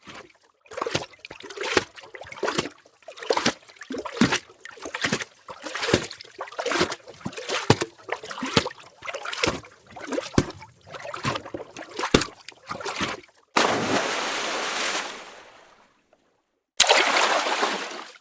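Water splashing: a long run of quick, irregular splashes, then a rushing wash of water that fades away, and a sudden loud splash near the end.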